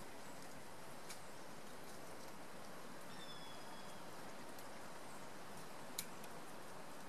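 Steady outdoor background hiss of swamp ambience. A faint thin high whistle sounds about three seconds in. Two brief clicks come through, a faint one about a second in and a sharper one near six seconds.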